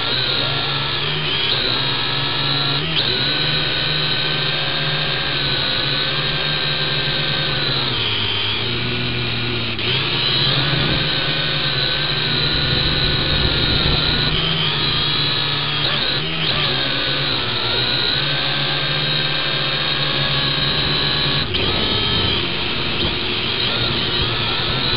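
Small quadcopter's motors and propellers whining steadily, heard close up through the drone's own onboard camera. The whine's pitch drifts up and down as the throttle changes, dipping briefly a few times.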